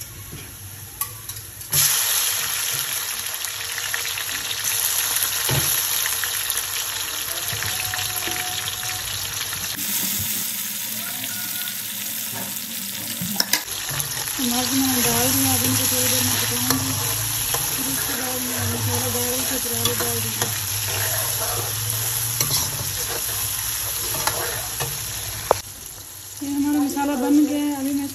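Onions and chopped tomatoes sizzling in hot oil in a karahi, with a metal ladle stirring and now and then knocking against the pan. The sizzle jumps up about two seconds in and stays loud until just before the end.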